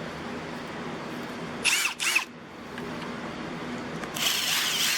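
Cordless brushless impact driver triggered briefly and spinning free, a motor whine that rises and falls. It comes twice in quick succession about two seconds in, then once more for most of a second near the end.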